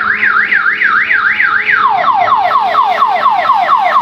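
Electronic ambulance-style siren of an odong-odong kiddie-ride train, a fast up-and-down wail about three times a second. About two seconds in it switches to a quicker pattern of falling sweeps.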